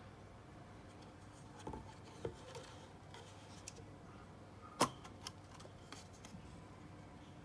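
Snap-on plastic lid being pried off a paper cup: a few light clicks and crinkles of the plastic, then a sharp pop about five seconds in as the lid comes free, followed by a couple of lighter clicks.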